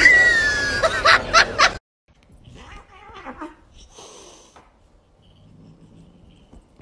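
A high falling cry followed by three quick bursts of laughter, cut off suddenly about two seconds in. Then faint scattered sounds of a puppy and a cat play-fighting.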